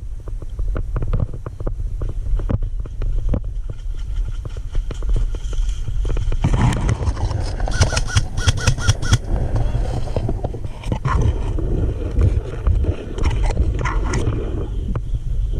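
Wind rumbling on the microphone, with rustling and clicks of movement. About halfway through comes a quick run of about eight sharp snaps, roughly five a second: an airsoft gun firing on automatic.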